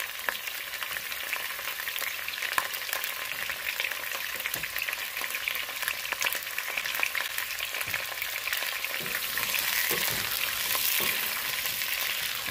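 Quartered tomatillos and red jalapeños frying in oil in a pot: a steady sizzle with fine crackling pops, growing louder about nine seconds in.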